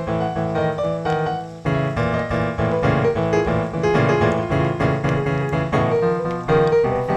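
Background piano music, with a steady rhythm of repeated chords and a short dip in level about a second and a half in.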